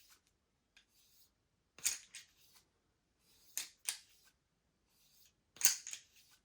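A cloth bore brush on a cleaning rod run through a 9mm pistol barrel, a short scraping swish with each stroke, roughly every two seconds.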